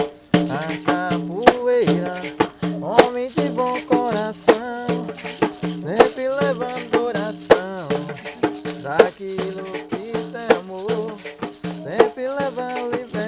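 Music with a rattle or shaker keeping a steady rhythm, with a heavier accent about every second and a half, over a voice-like melody.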